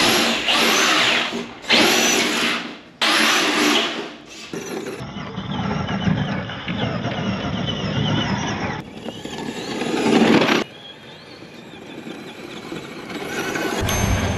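Traxxas Raptor RC truck's brushed electric motor whining as it drives, with its tyres spraying sand and gravel. It comes in a string of short clips that start and stop abruptly.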